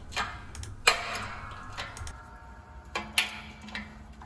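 Irregular sharp metallic clicks and knocks from a hydraulic shop press pushing a wheel bearing out of a front steering knuckle with a bushing driver. The loudest comes about a second in and rings briefly; another strong one follows about three seconds in.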